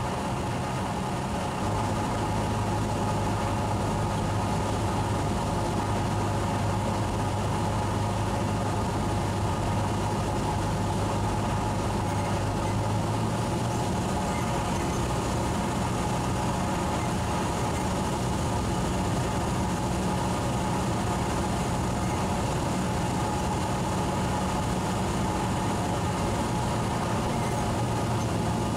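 Cessna 172's piston engine and propeller droning steadily in cruise flight, heard from inside the cabin. Its low hum shifts slightly in pitch about 14 seconds in.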